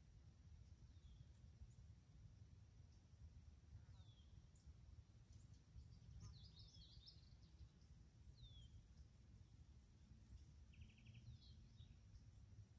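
Near silence: faint field ambience with a low rumble and a steady high cricket trill. A bird gives short falling chirps every few seconds, with a brief twittering phrase about six seconds in and a quick rapid trill near the end.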